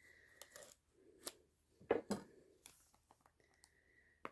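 A cardboard tarot-deck box being opened by hand: several short, faint scrapes and clicks of card and packaging, the loudest about two seconds in.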